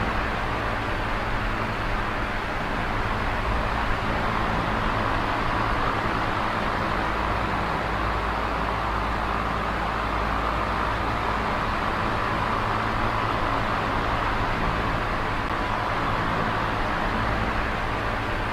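Small oscillating electric fan running steadily: an even whoosh of moving air with a faint motor hum, swelling and easing slowly as the head turns.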